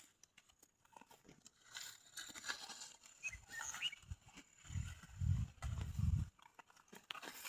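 A cow lowing: one deep moo about a second and a half long, a little past the middle.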